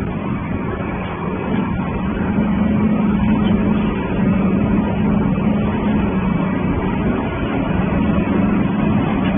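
Industrial waste-shredding line running: shredder and belt-conveyor machinery giving a steady hum under a dense, even noise.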